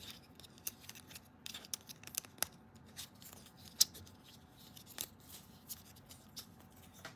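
Light plastic clicks and rubbing as a red plastic hub is fitted into a black plastic FischerTechnik gear and the parts are turned in the hands. The clicks are scattered and irregular; the sharpest comes a little before four seconds in.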